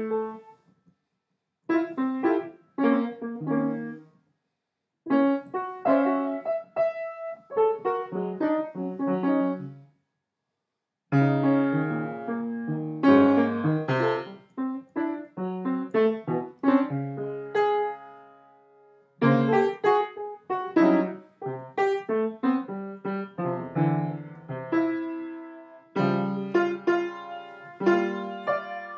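Piano playing in phrases of struck, decaying notes, cut by three abrupt silent gaps in the first ten seconds and then running on more continuously.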